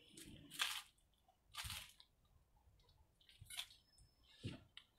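Faint, short breaths, about four, roughly one every second, from a man working through seated overhead presses with a homemade barbell.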